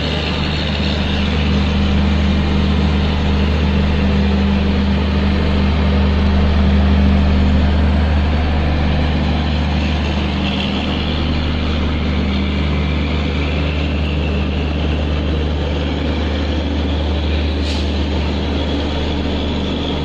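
A steady, loud, low drone of a running vehicle or machine: a constant hum under a broad noisy rumble that barely changes throughout.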